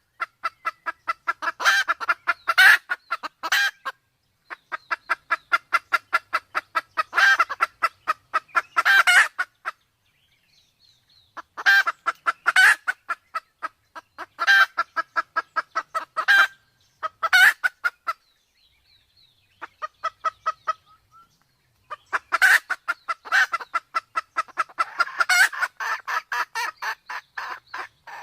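Red junglefowl hen clucking in rapid runs of sharp, evenly spaced clucks, several a second, broken by short pauses: the excited calling of a hen in breeding condition, used as a lure call.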